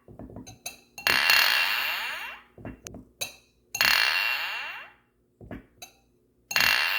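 Glass clinking: three loud clinks about two and a half seconds apart, each ringing and fading over a second or so, with small light taps of glass between them.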